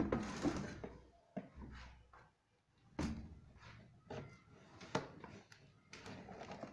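Cardboard box being worked open by hand: irregular scraping and rustling of the flaps, with a few sharp clicks.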